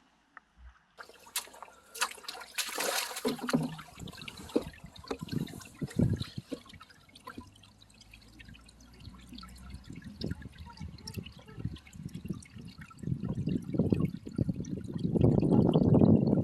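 Water splashing and trickling, with many small clicks and knocks; the splashing and pouring grow louder over the last few seconds.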